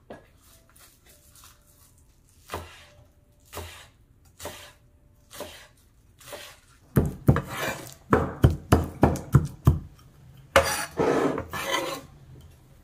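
Chef's knife chopping chives on a plastic cutting board: single cuts about a second apart, then a quicker run of about three chops a second. Near the end comes a longer scrape of the blade across the board as the chopped chives are gathered up.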